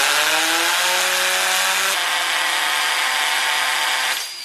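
Cordless drill running at speed, its motor whine climbing in pitch over the first second, then holding steady before it cuts off shortly before the end.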